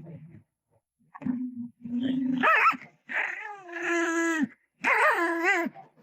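A dog vocalizing: two short low grumbles, then three drawn-out, wavering howl-like calls that rise and fall in pitch, the middle one the longest.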